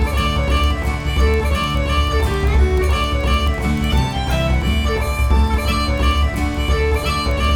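Background music: upbeat country-style instrumental with fiddle and guitar over a steady bass beat.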